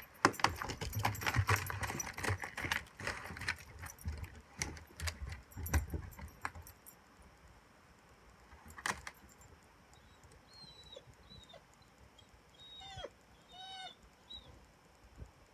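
Crunching and clicking noises, like footsteps or handling, for about the first seven seconds, then a quieter stretch with a few faint, short bird chirps from about ten seconds in.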